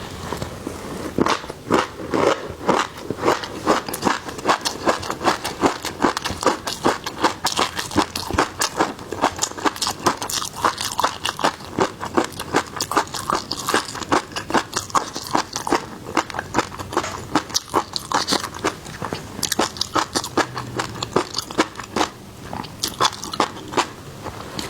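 Close-miked eating of seafood: steady biting and chewing with rapid crisp crunches and crackles, several a second.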